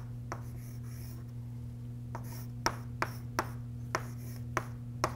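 Chalk writing on a blackboard: a series of sharp, irregular taps as the chalk strikes the board, with light scratching strokes between them, over a steady low hum.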